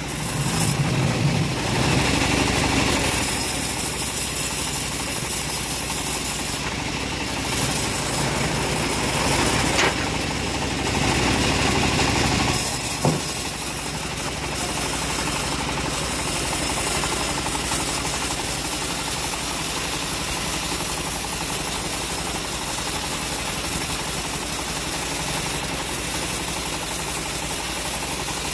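Homemade bandsaw mill running steadily, its band blade sawing lengthwise through a hard johar log, louder in two stretches of the cut. There is a single sharp click a little after the halfway point.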